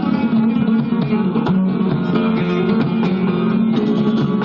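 Flamenco guitar playing: a steady run of plucked notes with a few sharp strummed chords.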